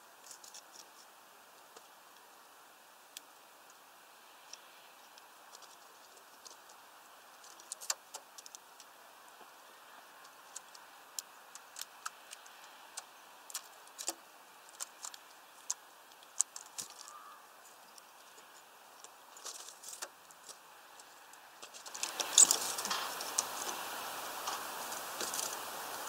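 Irregular sharp ticks and taps, some in quick little clusters. About 22 seconds in, a steady hiss rises and the taps get louder.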